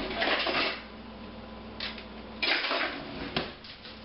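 Kitchen utensils and dishes clattering and scraping at the counter in two short bursts about two seconds apart, with a sharp click near the end.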